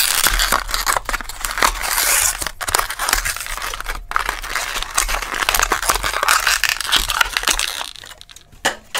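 A Matchbox cardboard-and-plastic blister card being torn open, a dense run of tearing, crinkling and crackling that eases off about eight seconds in.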